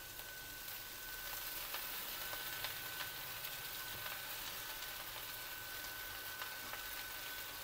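Faint, steady sizzle of vegetables in a steel kadhai as boiled noodles are tipped in over them, with a few soft clicks. A thin, steady high-pitched tone runs underneath.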